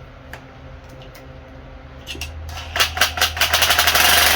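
A cordless power tool with a socket starts up about two-thirds of the way in, first in rapid stuttering pulses and then running steadily and loudly, spinning a nut off the end of a riding mower's brake rod. Before it, only faint clicks of tools being handled.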